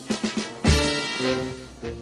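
A brass band playing held chords over drum strikes: a quick run of hits right at the start, then a loud bass drum beat a little past half a second in and another near the end.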